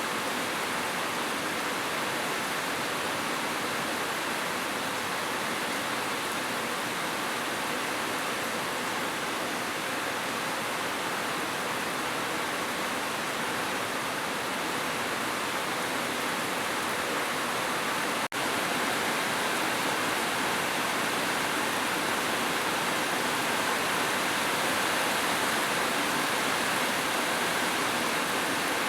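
Steady, dense rainfall, an even rushing hiss with no separate drops standing out. The sound briefly drops out for a split second about two-thirds of the way through, then carries on as before.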